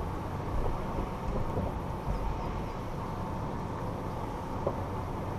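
2014 Toyota 4Runner SR5 rolling slowly over a rocky gravel off-road track: a steady low rumble from its 4.0-litre V6 and tyres, with a few faint clicks.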